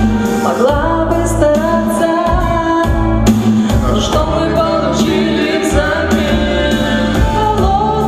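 Live pop-ballad singing into microphones over an instrumental backing track with bass and a steady beat.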